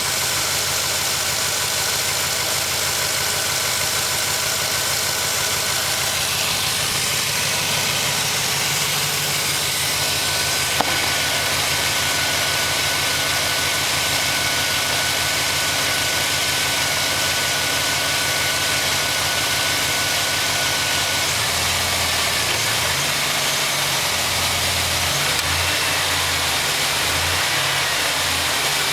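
2006 Trailblazer SS's LS2 V8 idling after a cold start, with the rapid knock of piston slap. A single sharp click about eleven seconds in, and the low drone turns uneven about two-thirds of the way through.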